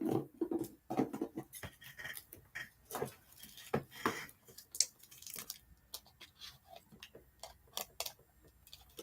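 Hands working at a package to open it: irregular clicks, taps and short rustles of box and packaging material.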